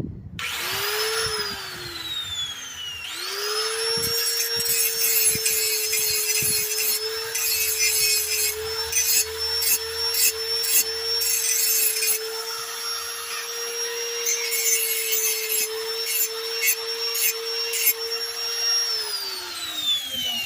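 Power grinder grinding metal off the heavy end of a steel lawnmower blade to balance it: it spins up and winds down briefly, then starts again about three seconds in and runs with a steady whine and rough rasping contact until it winds down near the end.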